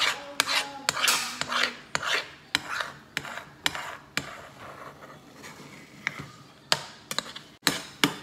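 A metal spatula scraping and stirring eggs around a nonstick frying pan in quick repeated strokes, about two or three a second, with a few sharp clicks of metal on the pan. The strokes ease off around the middle and pick up again near the end.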